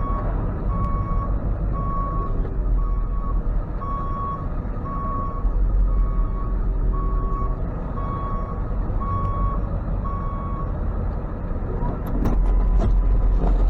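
Tow truck's reverse alarm beeping steadily, about once a second, over the truck's engine running as it backs up. The beeps stop near the end and the engine gets louder.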